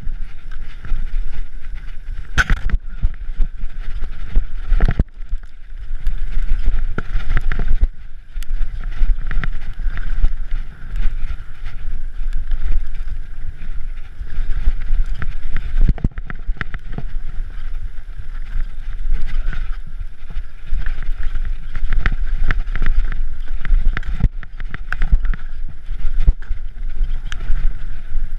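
Mountain bike riding over a rough, stony trail: a constant low rumble with frequent sharp knocks and rattles from the bike jolting over bumps, picked up through the handlebar-mounted camera.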